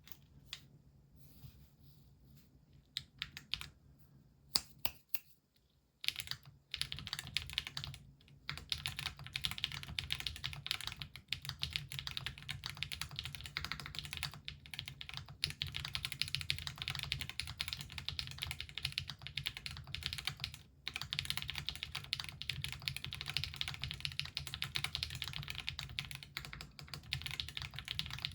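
Typing on a Weikav Record A67 mechanical keyboard with stock-lubed Gateron Mini i switches, Drop DCX keycaps and an aluminium case. A few scattered single keystrokes, then from about six seconds in, steady fast typing, broken by a brief pause about two-thirds of the way through.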